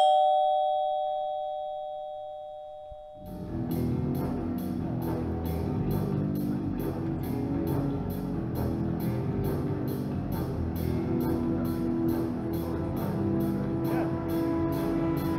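Two-note ding-dong doorbell chime, its lower second note ringing out and fading over about three seconds. Music with drums and a steady beat then comes in and runs on.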